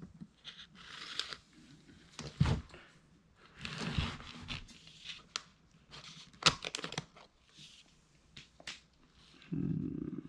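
Shipping packaging being opened by hand: irregular tearing and crinkling rustles with a few sharp clicks.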